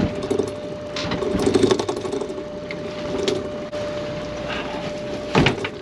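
Steady mechanical whine and rattle of machinery aboard a small fishing boat while a lobster pot is hauled up, with a few sharp knocks, the loudest near the end.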